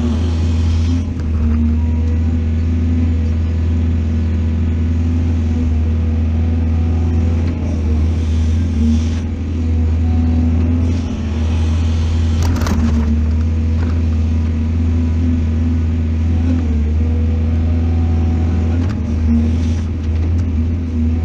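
Excavator's diesel engine running steadily with a deep, even drone, and one short sharp knock about twelve seconds in.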